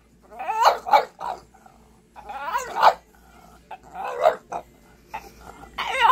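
French bulldog "talking": a string of about five short vocal sounds with wavering, bending pitch, the longest a little over half a second, about two seconds in.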